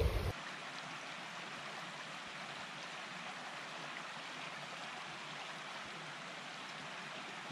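Steady, even rush of running water, like a stream. A split second of wind buffeting on the microphone cuts off abruptly at the very start.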